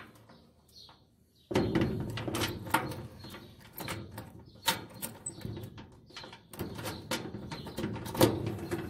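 A few faint bird chirps, then, about a second and a half in, a sudden dense run of irregular knocks and rustling that keeps on.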